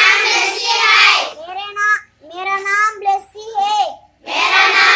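A group of children singing together in unison, in short phrases with brief pauses between them.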